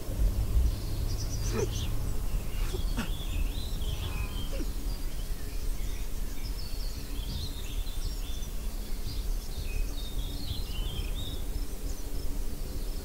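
Steady low background rumble with scattered short, high chirps like small birds, and a few faint ticks in the first few seconds.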